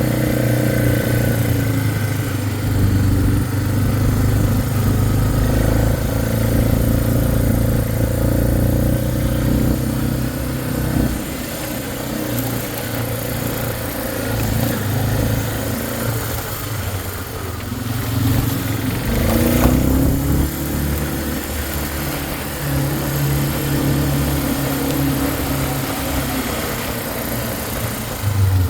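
Four-wheeler (ATV) engine running while riding, its note shifting with the throttle, with a short rev-up about two-thirds of the way through.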